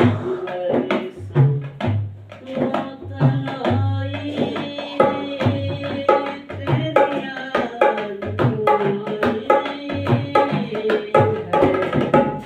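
Indian instrumental music: a tabla beat in steady strokes under a melody of held, sustained notes.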